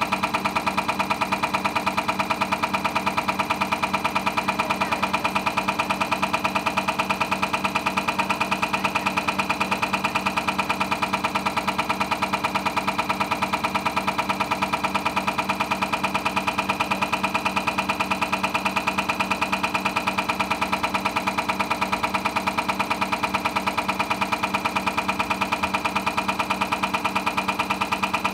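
Hartridge cam box test bench running a Cummins ISX injector through its automated tests: a steady machine drone with rapid, even ticking as the cam drives the injector through its injection strokes.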